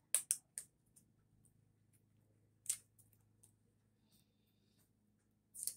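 Sharp little plastic clicks and snaps from handling a cellphone and its small plastic packaging: three quick clicks right at the start, a single one near the middle, and a cluster near the end.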